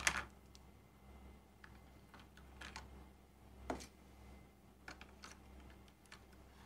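Scattered small clicks and taps of hard plastic being handled: the battery compartment in a toy light-up sword's plastic handle being opened and batteries fitted. A louder click comes right at the start and another just under four seconds in.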